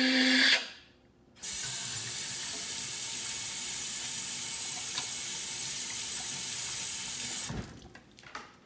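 Kitchen tap running into a sink: a steady hiss of water that starts suddenly about a second and a half in and cuts off about six seconds later, as hands are rinsed after washing.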